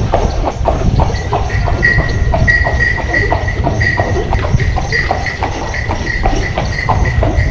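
Carriage horse's hooves clip-clopping on stone paving, an even run of about three strikes a second, with a high ringing tone pulsing in step.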